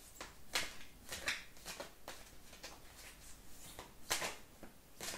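A deck of large oracle cards being shuffled by hand: soft swishes of cards sliding against each other at irregular intervals, the loudest about four seconds in.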